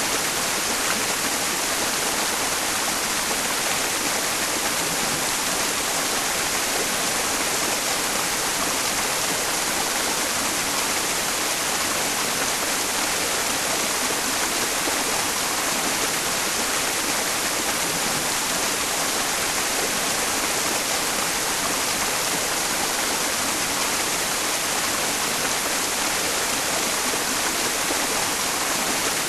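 Mountain stream's rushing water blended with white noise: a steady, unbroken hiss, strongest in the high range, mixed as a tinnitus-masking sound.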